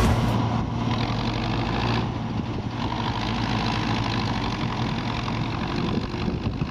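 Diesel engine of harvest machinery, the combine or the tractor, running steadily.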